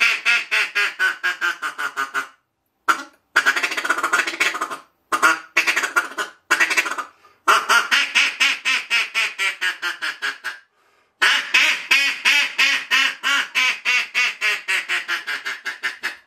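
Handmade Queen Ebony reed duck call blown in six runs of rapid quacks, about seven a second, each run starting loud and tapering off. The call has a freshly thinned soundboard and re-set reed, and it now quacks well and blows easily.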